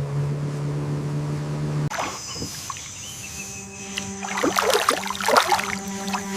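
Small boat moving through floodwater, with water sloshing and a cluster of louder splashes between about four and five and a half seconds in, over a steady background music drone.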